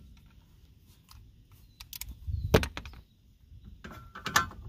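Hand tools working on the front brake caliper bracket bolts: a few faint clicks, one sharp knock about two and a half seconds in, then more clicks near the end.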